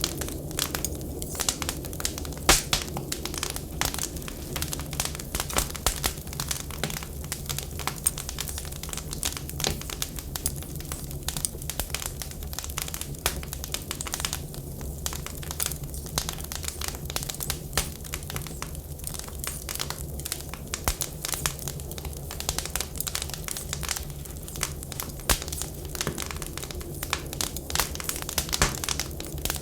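Wood fire crackling, with many small irregular pops and a few louder snaps, over a steady low rumble.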